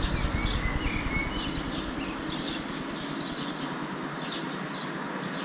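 Outdoor street ambience: birds chirping over a steady background of distant traffic noise.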